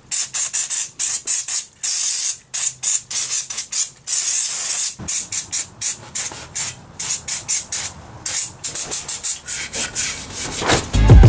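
An aerosol cleaner is sprayed in a long string of short hissing bursts, with a few longer blasts among them, to clean the oily clutch housing and flywheel. Background music comes in near the end.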